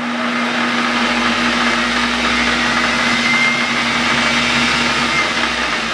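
Metal lathe running, spinning a model hit-and-miss engine flywheel with its flyball governor, a steady motor hum under an even mechanical whirr. It grows louder over about the first second, then holds steady.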